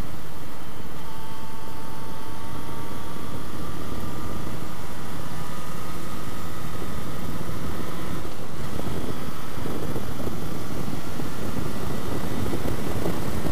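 Steady rush of riding wind over the microphone on a 2005 Yamaha FZ6 moving at road speed, with the inline-four engine's faint whine held underneath.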